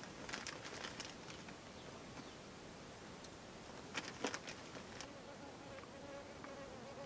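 A flying insect buzzing, a faint steady hum that comes in about five and a half seconds in, with scattered small clicks and rustles, the loudest a couple of sharp ones about four seconds in.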